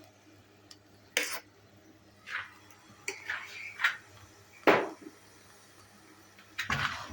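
Utensil knocking and scraping against a cooking pot in several separate strokes while mashing cooking bananas into mashed beans; the loudest knock comes about halfway through. A low steady hum lies underneath.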